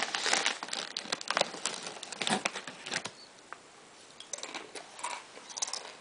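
Crinkling and crackling of a bag of chips being handled, dense through the first half and sparser, fainter crackles later.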